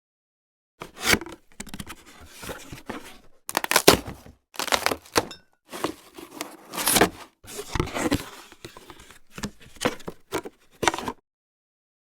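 A sound effect made of a run of irregular noisy crackles and crashes with short gaps between them, starting about a second in and stopping about a second before the end.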